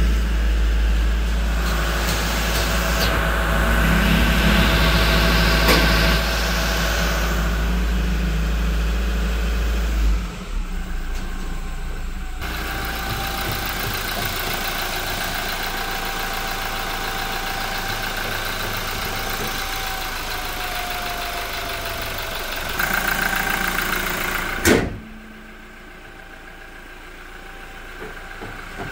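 Toyota Innova Crysta diesel engine idling steadily. Near the end a single sharp bang as the bonnet is shut, after which the engine sounds fainter and muffled.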